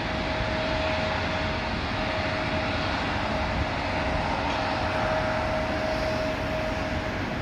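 Twin Garrett TPE331 turboprop engines of a 1982 Gulfstream 690D at takeoff power as it lifts off, heard at a distance: a steady rushing engine noise with a high whine held throughout.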